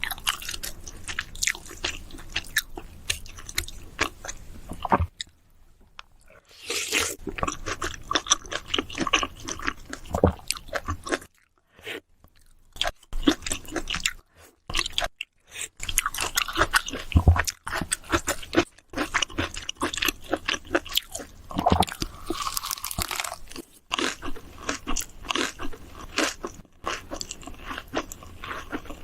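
Close-miked mukbang eating: a person chewing and biting food, with irregular crunches and wet mouth clicks, pausing twice for a second or more.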